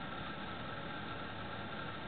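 Steady background hiss and hum with a faint, steady high whine, and no distinct events.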